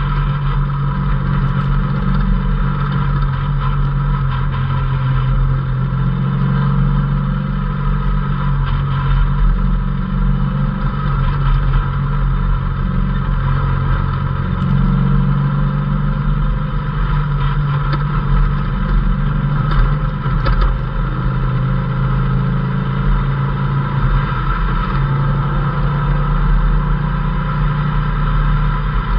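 Off-road vehicle engine running steadily at speed on a dirt trail, heard from inside the open cab with road and wind noise, and a constant low drone that rises and falls only slightly.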